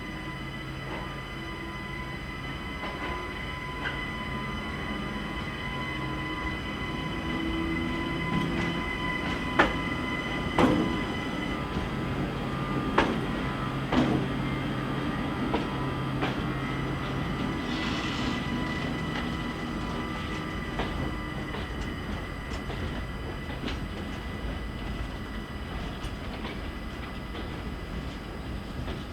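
CP Series 4700 EuroSprinter electric locomotive hauling a freight train past, its steady electrical hum running throughout. Several sharp clanks from the wheels over rail joints come in the middle, and a brief wheel squeal follows a few seconds later.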